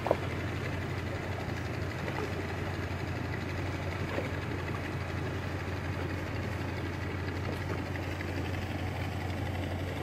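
An engine running steadily, a low, even drone.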